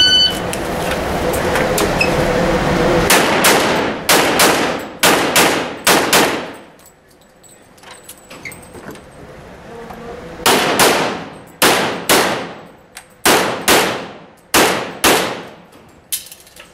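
Shot timer beep right at the start, then rapid pistol fire echoing in an indoor range: quick strings of shots, a pause of about four seconds, then more strings of shots.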